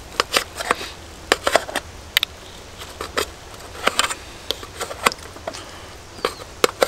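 A knife and metal fork clicking and scraping against a small frying pan as sausages are cut in it: an irregular run of sharp metallic clicks, a few a second, some in quick pairs.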